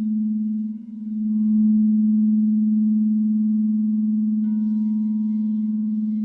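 Crystal singing bowls ringing: one steady, low, pure tone dips briefly about a second in and swells back. About four and a half seconds in, another bowl is struck, adding higher ringing tones over it.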